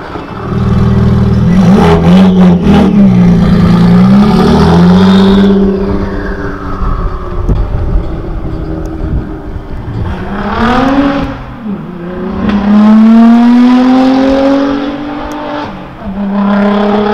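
Car engines revving and accelerating hard with loud exhausts, the pitch climbing, dropping at gear changes and climbing again. A quick cluster of sharp cracks about two seconds in.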